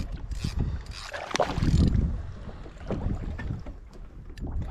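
Small fish splashing at the surface as it is lifted out of the sea beside a kayak, the loudest splash about a second in, with water slapping the hull and wind on the microphone.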